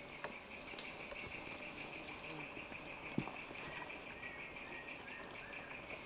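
Rainforest insect chorus: a steady high-pitched buzz over a lower, rapidly pulsing trill.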